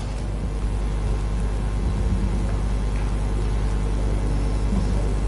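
Steady low rumble and hum with faint background noise: the room tone of a large hall picked up through the microphones.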